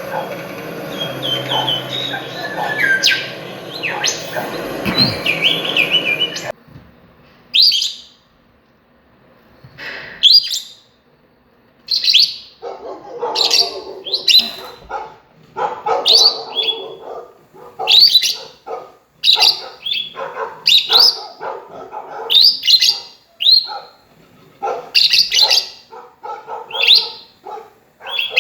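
Birds chirping in a dense mix that cuts off abruptly, then, after a short pause, a bird calling over and over in short repeated calls about once a second.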